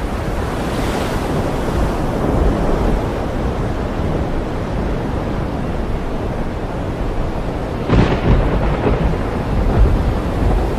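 Thunderstorm at sea: a continuous low rumble of thunder over a steady wash of rain and sea, with a sharp thunderclap about eight seconds in.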